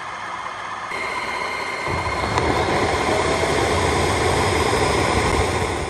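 Tineco Floor One S5 Pro vacuum mop running its self-cleaning cycle in its dock, a steady motor and suction noise. A steady high whine joins about a second in, and the sound grows louder and deeper about two seconds in, then holds steady.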